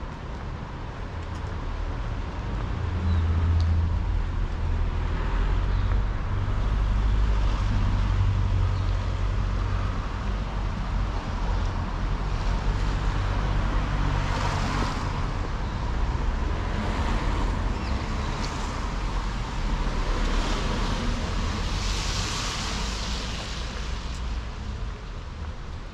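Street traffic: a steady low rumble of car engines, with tyre hiss from cars on the wet road swelling up about halfway through and again near the end.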